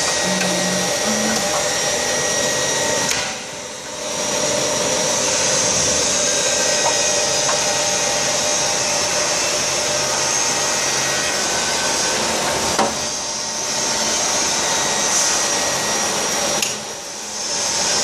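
Oil-type mould temperature controller running: a steady, loud whirr of its circulating pump motor, briefly dropping in level three times.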